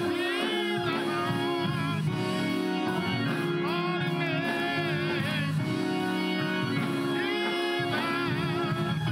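Gospel choir singing with organ accompaniment: held sung notes with wavering vibrato over sustained organ chords.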